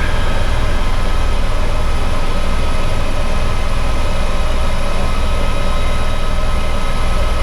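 Helicopter cabin noise in flight: the engine and rotor make a steady, loud drone with a heavy low rumble and a few thin, steady high tones above it.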